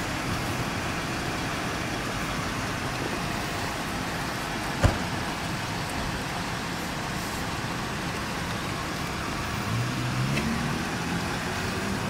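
Steady motor-vehicle noise, an engine running or traffic going by, with a single sharp click about five seconds in. A low pitched hum joins near the end.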